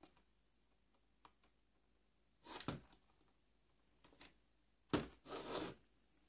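Handling noise from RC electronics and their leads being moved about on a workbench: a few faint clicks, then short rustling, scraping bursts about two and a half seconds in and twice more near the end.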